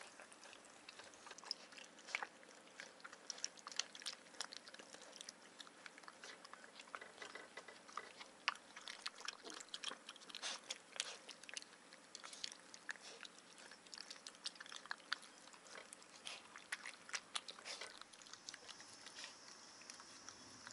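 Golden retriever puppy eating dry kibble from a ceramic bowl: a quick, irregular run of small crunches and clicks.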